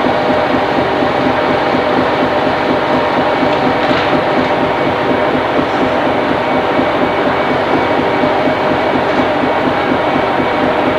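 A fishing trawler's engine and deck machinery running with a loud, steady drone, several steady hum tones through it. A faint click about four seconds in.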